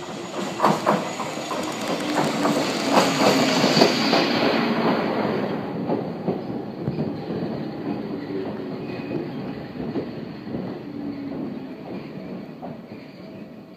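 Toyama Chihō Railway 14760-series two-car electric train pulling into the station, its wheels clacking over the rail joints. The clacking is loudest in the first few seconds, then the sound fades as the train slows to a stop, with some light wheel squeal.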